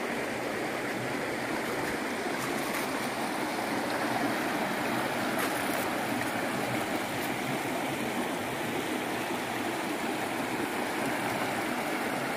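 A shallow rocky stream running steadily over stones and small rapids.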